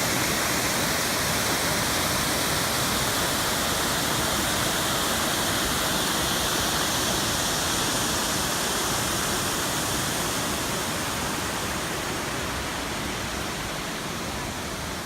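Inglis Falls waterfall, a steady dense rush of falling water, easing off slightly near the end.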